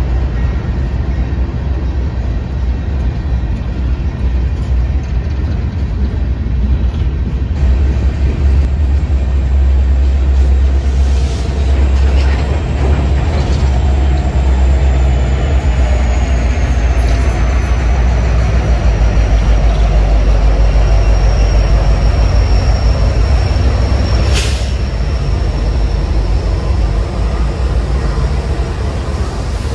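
Empty coal hopper cars of a freight train rolling past at close range, a steady heavy rumble of steel wheels on rail. Midway a thin high whine slides slowly lower, and about two thirds through there is one sharp bang.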